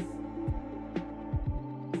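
Background music with sustained tones and repeated drum hits.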